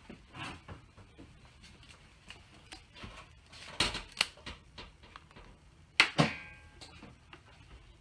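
Clicks and knocks of equipment and cables being handled on a desk. There are two sharp knocks a little under four seconds in and a louder pair about six seconds in, the second ringing briefly.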